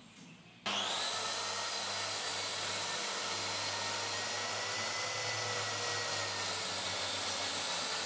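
Bosch plunge track saw starting suddenly just under a second in, its whine rising briefly, then running steadily as it is pushed along its guide rail cutting through a sheet.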